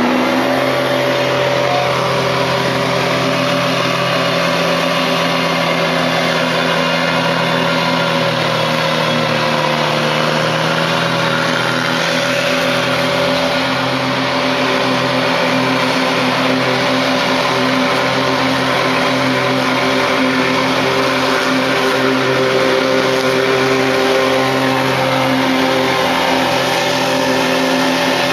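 Bad Boy zero-turn ride-on mower's engine running at a steady speed, its pitch sagging briefly about ten seconds in before settling back.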